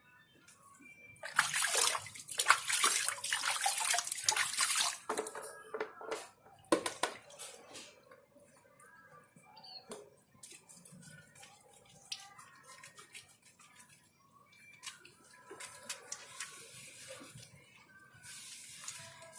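Water pouring and splashing during a bath. A loud rush of pouring water lasts about four seconds, then comes a few splashes, then quieter small splashes and knocks.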